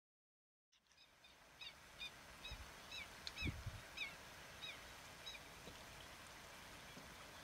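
Pied avocets calling: a run of short, repeated high notes, each hooking down in pitch, about two a second, fading in at the start and stopping a little past halfway. A steady outdoor hiss lies underneath, with a couple of low thumps near the middle.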